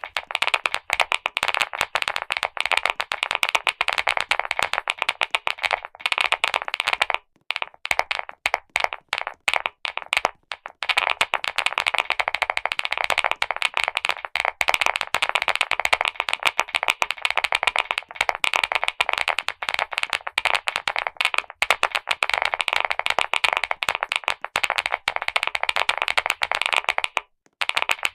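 Fast, continuous typing on a clicky mechanical keyboard: a dense stream of key clicks, broken by short pauses about seven to eleven seconds in and again near the end.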